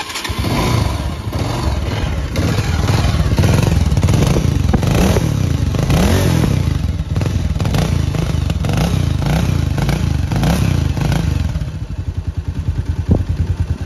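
Bajaj Avenger 220's single-cylinder four-stroke engine starting and running, freshly revived after five years of sitting with a cleaned carburettor. It is revved up and down a few times in the middle, then drops to idle near the end with separate exhaust pulses.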